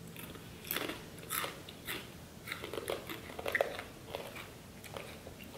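Two people biting into and chewing crunchy pieces of a sweet and salty snack mix, chocolate-covered potato chips and caramel popcorn: a string of irregular crunches, loudest a little past the middle.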